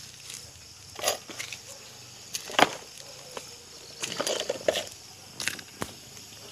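Irregular rustling and brushing of leafy plant stems with a few sharp clicks, as a cat and the camera push through potted plants. The sharpest click comes about two and a half seconds in, and a cluster of rustles follows about four to five seconds in.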